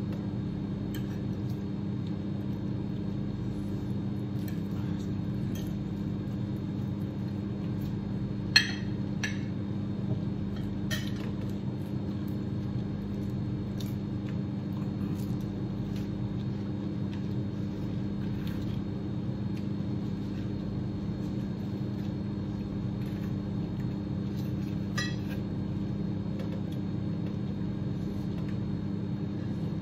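Fork and spoon clinking now and then against plates during a meal, a handful of short clinks with the sharpest about eight and a half seconds in, over a steady low hum.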